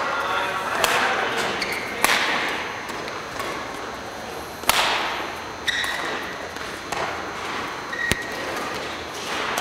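Badminton rally: rackets striking the shuttlecock about six times, a second or more apart, each hit echoing in a large hall. Short squeaks of court shoes sound between the hits.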